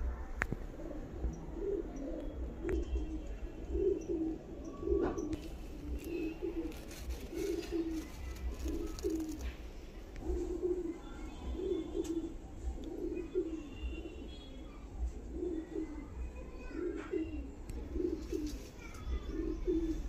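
Domestic pigeons cooing, short low coos repeating about once a second in runs.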